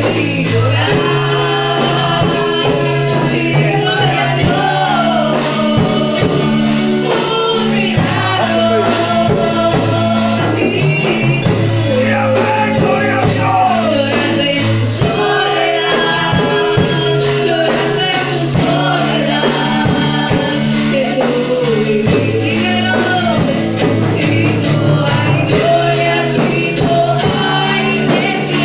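Live church praise band playing a worship song: a woman singing lead over electronic keyboards and a drum kit, with a tambourine and maracas shaken along.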